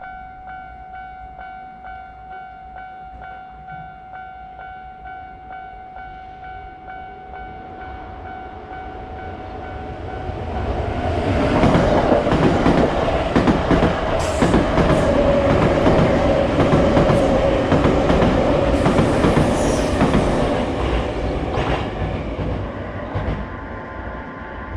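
Japanese railroad crossing warning bell ringing a steady, evenly repeated kan-kan tone. About ten seconds in, a train passes through the crossing, its wheels clicking over the rail joints. It is loudest midway and fades near the end.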